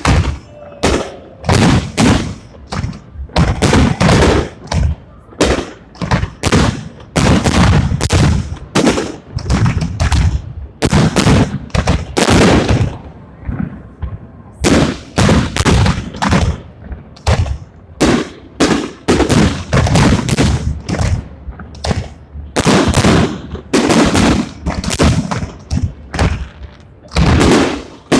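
Fireworks salute: shells bursting in a rapid, continuous string of loud bangs, several a second, with a brief lull about halfway through.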